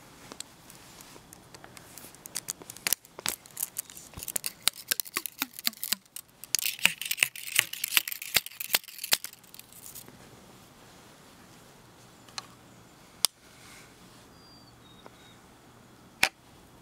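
A metal rod tapping and scraping in a small wooden loading block for a muzzleloading rifle. Irregular sharp clicks build into a dense, high scraping rasp that stops about two-thirds of the way through. A few single sharp clicks follow, the last shortly before the end.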